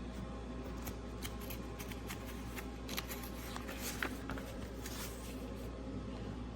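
A series of light clicks and rustles, as of something being handled, over a steady low hum; the clicks cluster in the middle and are sharpest about three and four seconds in.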